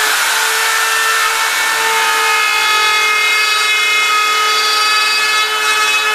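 RotoZip spiral saw running at full speed and cutting into a wall: a loud, steady, high-pitched whine.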